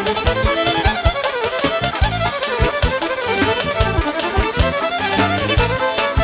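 Violin played live, a fast melody with gliding, ornamented runs over a band's steady beat.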